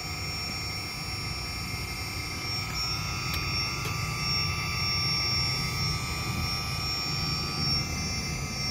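Hydraulic pump of a radio-controlled excavator running steadily: an even low hum with a thin, steady whine above it.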